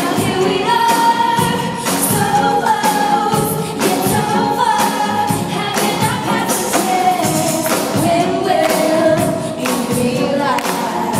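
A woman singing a pop song live over a full band, her voice holding and sliding between long notes above regular drum hits.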